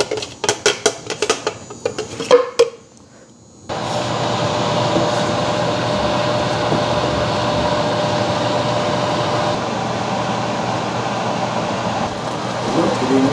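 Quick clinks and knocks as a hand blender and its beaker are tapped against a stainless steel pan, emptying blended spice paste into it. After a short pause, the watery paste sizzles steadily in the hot pan as it is stirred with a wooden spatula and cooked down, with a steady hum under it.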